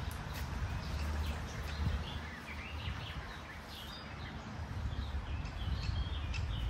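Small birds chirping, with many short calls scattered through and more of them in the second half, over a low rumble.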